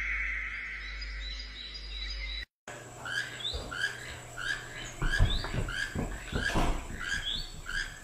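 A bird splashing as it bathes in shallow water. After a sudden cut, a run of short, high squeaky chirps repeats about twice a second, with a few soft thumps under them.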